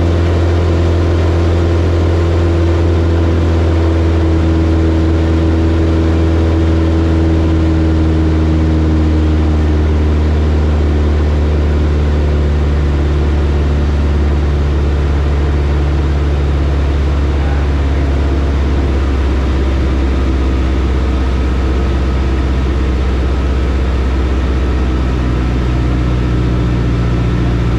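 Single-engine light aircraft's engine and propeller droning steadily, heard inside the cockpit. The pitch eases down slightly partway through.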